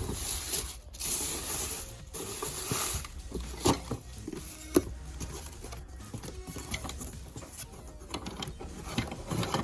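Metal drum-brake shoes being handled: scattered clicks and rattles, with a few sharper knocks about a third and halfway through and near the end.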